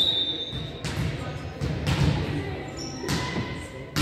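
Basketball bouncing on an indoor court: a few sharp, echoing thuds spaced a second or more apart, over a low background murmur.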